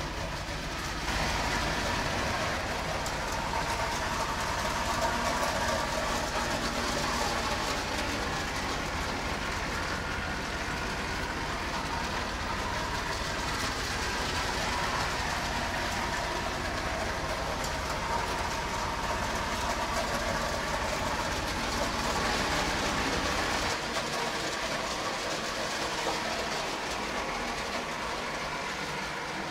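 Toy electric trains running on their track, a steady mechanical running noise. The deep part of the sound drops away a few seconds before the end.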